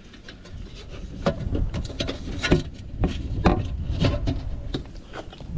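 Irregular clicks, knocks and scrapes of sheet-metal parts as the whirlybird turbine head is fitted onto its base.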